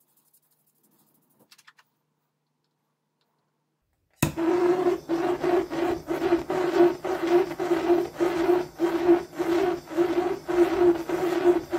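Handheld gas blowtorch burning against the dyed wood, a steady rushing with a strong hum that pulses about twice a second; it starts suddenly about four seconds in, after near silence.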